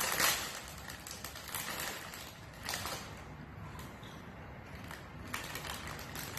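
Foil potato-chip bag crinkling as it is handled and pulled open, loudest in the first half-second, with further bursts about two and a half seconds in and near the end.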